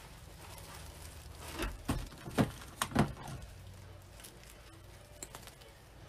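Ribbon being handled and tied by hand on a bow maker: a few short rustles and light knocks about two to three seconds in, with quiet handling before and after.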